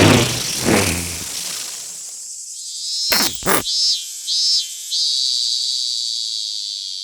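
Formosan black bear cicada calling: after a rough noise that fades in the first second or so, two sharp clicks come about halfway through, then a few short high buzzes, then a steady high buzz that holds to the end.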